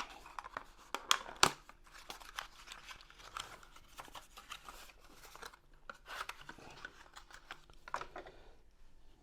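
Packaging being handled as a small tracker is worked out of its box: irregular crinkling and rustling with scattered sharp clicks, the loudest two about a second and a second and a half in.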